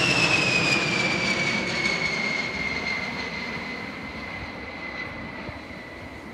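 B-52 Stratofortress bomber's eight jet engines passing low overhead: a loud rumble with a high whine that slides steadily down in pitch as the aircraft goes by and draws away, fading over the few seconds.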